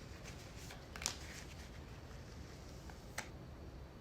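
Faint handling noises of hand work, with two sharp clicks, one about a second in and one just after three seconds.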